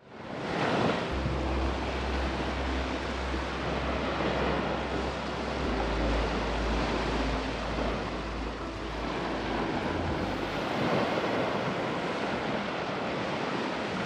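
Steady rushing wind noise on the microphone outdoors, with a low hum underneath that drops away about three-quarters of the way through.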